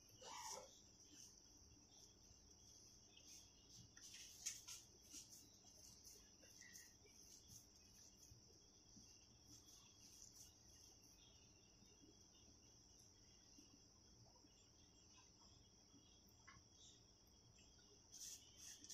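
Near silence with a faint, steady high-pitched trill of crickets and a few soft clicks.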